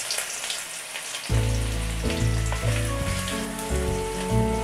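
Crushed garlic sizzling as it fries in smoking-hot mustard oil in a karahi. Background music comes in about a second in.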